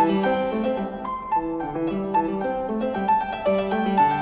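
Background piano music: a steady run of single notes over a lower line.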